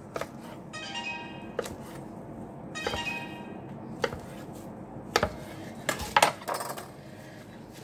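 Scattered clinks and knocks of dishes and utensils in a working kitchen, with a few sharp clatters close together about five to six and a half seconds in.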